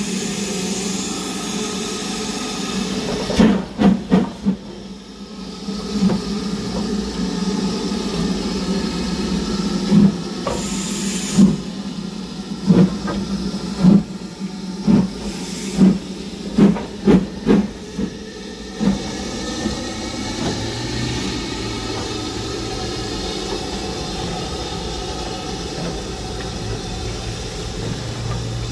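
Steam locomotive hissing steam, with a series of loud, uneven exhaust chuffs between a few seconds in and about two-thirds of the way through, several in quick succession near the end of the run, as its driving wheels slip on the rails.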